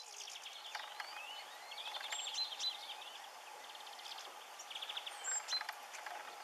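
Small songbirds calling and twittering: repeated rapid rattling trills, short rising chirps and a few brief high whistles, over a steady low background hum.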